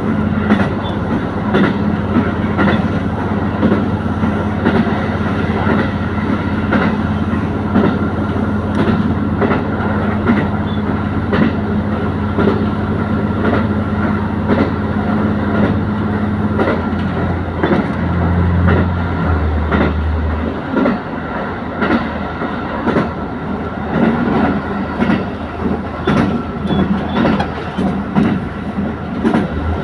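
Diesel railcar running on the line: a steady engine drone whose note shifts a little over halfway through, with wheels clicking over rail joints all along.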